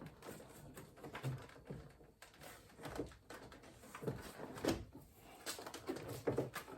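Scattered light knocks and plastic clicks of a car door's interior trim panel being handled as it is worked free of the door.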